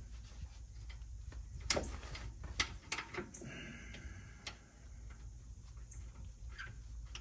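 Scattered sharp metallic clicks and light scrapes of a bolt being fitted by hand into the lower front shock-absorber mount of a Chevy Astro van, the loudest clicks about two seconds in.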